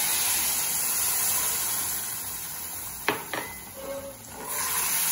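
Milk sizzling and hissing as it is poured into a hot nonstick pan of roasted semolina, then stirred in. A single sharp knock about three seconds in.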